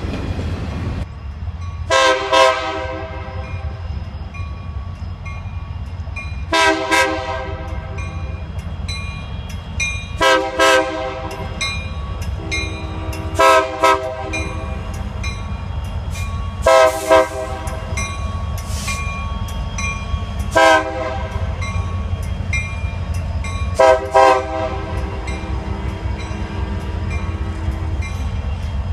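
Union Pacific SD70M-led freight train sounding its air horn in a horn show: seven loud blasts, about every three to four seconds, several of them quick pairs of short toots, over the steady low rumble of the diesel locomotives.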